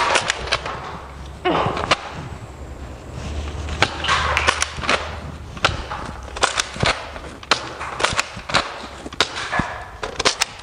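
Nerf foam-dart blasters being worked and fired: many sharp, irregular plastic clicks and knocks, with a few short rustling bursts.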